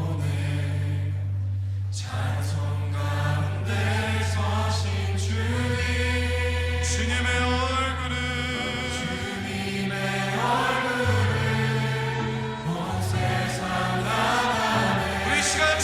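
Slow contemporary worship-song backing track in G at about 65 beats per minute, with the piano part left out: long-held bass notes under sustained, choir-like chords that change every few seconds.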